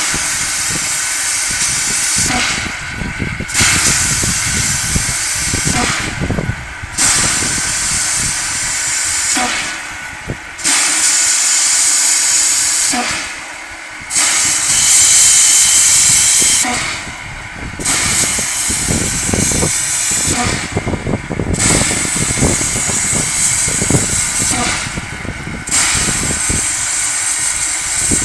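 Narrow-gauge steam locomotive hissing steam at the start of its departure, the hiss breaking off and returning every three to four seconds, with low chuffs and knocks beneath it.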